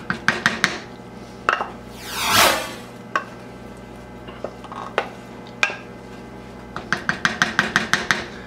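A metal wire whisk and a wooden spoon clinking and scraping against each other and an enameled cast-iron pot as roux is stirred into thick soup. A brief swelling swish comes about two seconds in, and a quick run of light taps, about eight a second, near the end.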